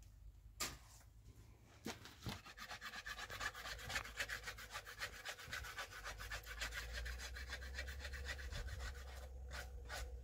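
Fast, even back-and-forth rubbing or scraping strokes, several a second, starting about two seconds in and stopping shortly before the end, with a few single knocks around them.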